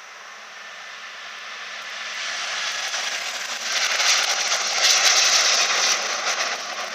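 Airbus A330-200 twin-engine jet airliner taking off, its jet noise swelling to a peak about four to six seconds in as it passes, then fading.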